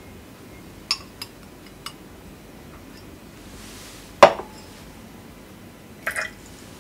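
Glass labware clinking against glass and a wooden tabletop: a few light ticks in the first two seconds, a louder knock with a brief ring a little past four seconds as the glass beaker is set down, and a quick double clink near the end.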